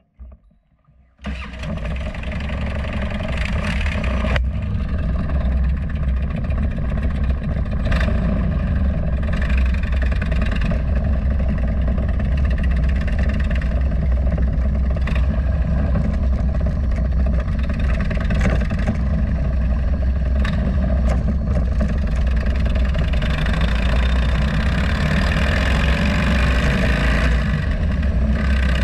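Harley-Davidson Road Glide's V-twin engine running as the motorcycle rides, mixed with wind and road noise, picked up by a camera mounted low by the front wheel. The sound cuts in abruptly about a second in and stays steady, with more hiss in the last few seconds.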